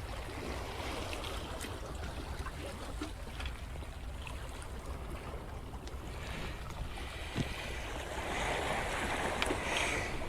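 Sea water washing and lapping against shore rocks over a steady low rumble, with a few faint clicks; a wash of water swells up near the end.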